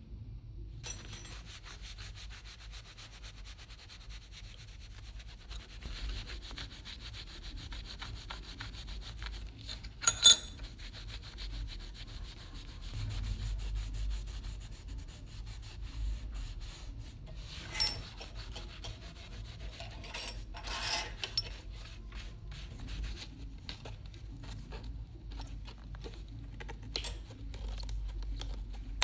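Steady hand rubbing on a small pocket knife, as in sanding or polishing work. A few sharp clicks cut through it, the loudest about ten seconds in.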